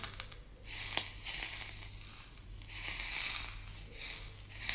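Hot oil poured over minced scallion, ginger, garlic and chilli on salted shredded cabbage, sizzling and crackling in two swells, with a sharp click about a second in.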